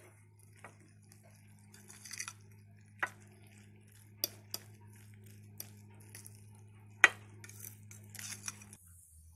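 Metal fork stirring a thick batter of grated vegetables, egg and flour in a glass bowl: wet scraping with several sharp clinks of the fork against the bowl, the loudest about seven seconds in. A steady low hum runs underneath.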